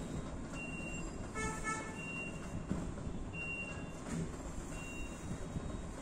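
Steady low background rumble with a short high beep repeating about every second and a half, and a brief pitched two-pulse horn-like tone about a second and a half in.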